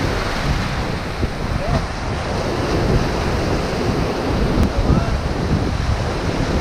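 Shallow ocean surf washing in over the sand, a steady rushing wash, with wind buffeting the microphone.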